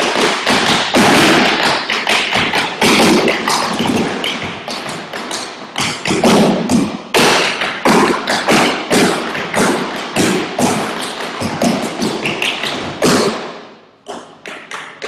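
Several dancers tapping in tap shoes on wooden tap boards: a fast, dense run of metal taps and heel drops with heavier thuds mixed in, stopping near the end.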